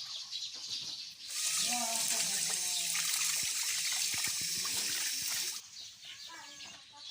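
Water running or pouring steadily for about four seconds, starting about a second in and stopping suddenly, with chickens clucking faintly in the background.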